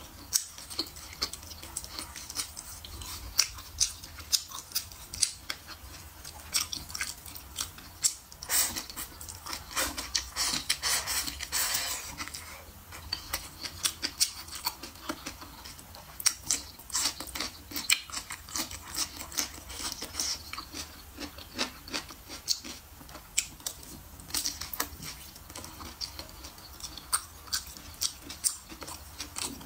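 Close-miked chewing of pork belly and sausage: a steady run of wet mouth clicks and smacks, busiest about a third of the way in.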